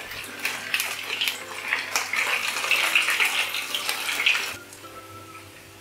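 Potato pancakes (draniki) sizzling and crackling in hot oil in a frying pan. The hiss stops suddenly about four and a half seconds in.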